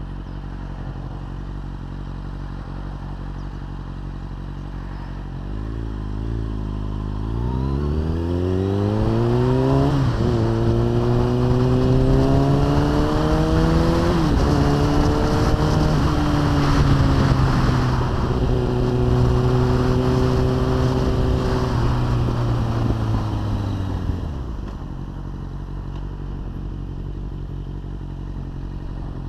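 Sport motorcycle engine running at a low steady note, then accelerating hard about a quarter of the way in. The pitch climbs with short dips at each upshift, holds a high steady run, then drops back to a low steady note as the throttle closes, with the engine starting to pick up again at the very end.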